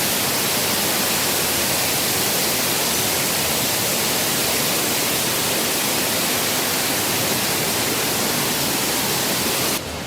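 Waterfall rushing close by: a loud, steady hiss of falling water that cuts off suddenly near the end.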